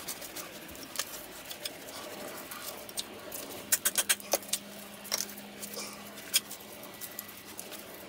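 Hammer blows on a small steel punch, drifting a pin out of a rusty classic Mini rear radius arm: scattered sharp metallic taps, a quick run of hard strikes about four seconds in, and a single hard blow a couple of seconds later.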